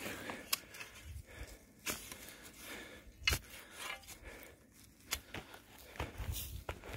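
Footsteps and rustling on loose, freshly torn-up soil and dry grass, with scattered sharp cracks and clicks and a few soft low thuds near the end.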